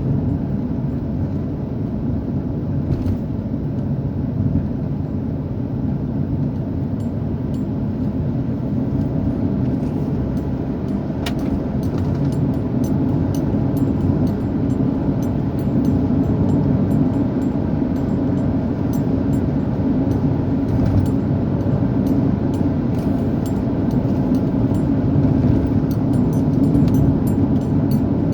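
A vehicle driving at steady speed: a continuous low rumble of engine and road noise that grows slightly louder over time.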